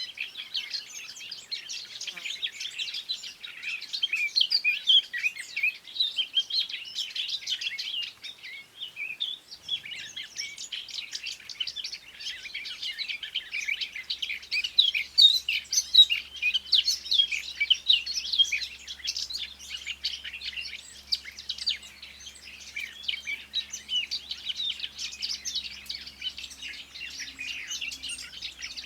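Many small birds chirping and singing at once: a dense, unbroken chorus of short high calls, with a brief lull about eight seconds in.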